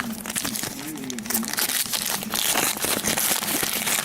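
Trading-card pack wrappers crinkling in quick, irregular crackles as packs are handled and torn open.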